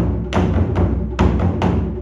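Background music with percussive drum hits at a steady pulse over a sustained low bed.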